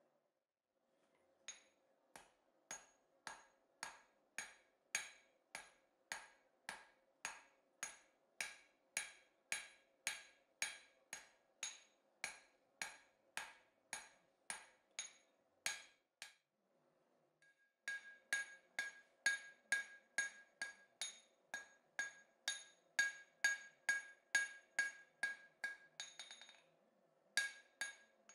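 Hand hammer striking a red-hot flat steel bar on an anvil, about two blows a second, drawing out the bar's end. After a short pause midway the blows go on, each with a clear ringing tone from the anvil.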